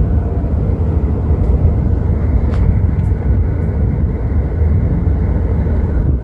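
Steady low rumble of a convertible car on the move: road and wind noise with the engine underneath.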